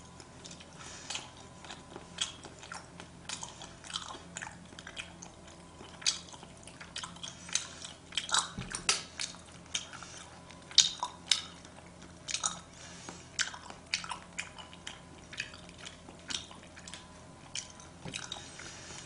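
Person chewing sushi: irregular mouth clicks and smacks, a few every second.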